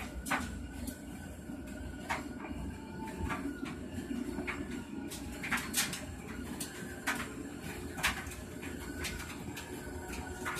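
Aquarium air-stone bubble wall running: a steady low hum and bubbling noise with irregular sharp pops and clicks scattered through it.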